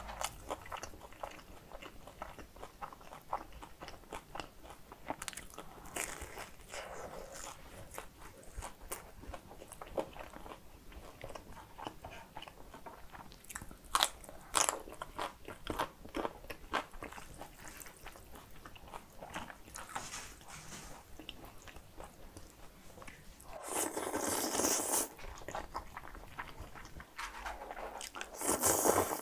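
Close-miked eating sounds: moist chewing, with crisp crunchy bites of yellow pickled radish around the middle. Near the end come two longer slurps of cold spicy noodles.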